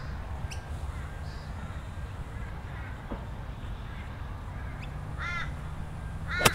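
A golf club strikes the ball once, a single sharp crack near the end, on an approach shot from the fairway. A bird calls a couple of times just before it, over a low wind rumble on the microphone.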